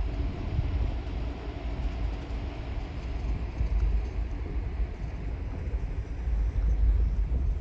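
Wind buffeting the phone's microphone: an uneven low rumble with a faint hiss above it.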